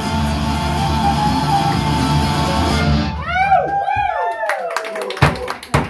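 A guitar-backed folk song plays and stops about three seconds in. A few high gliding calls follow, then a run of sharp knocks.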